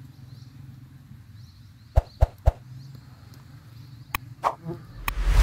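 Strawberries dropping into a bowl: three sharp taps about a quarter second apart, then two more a couple of seconds later, over a faint steady hum and faint bird chirps at the start. Near the end a loud rushing noise swells up.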